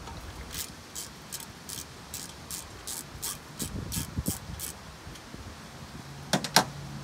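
Socket ratchet clicking in a steady run of strokes, about three a second, turning a bolt on a sterndrive's bell housing. It stops, and two sharp metal clinks follow near the end.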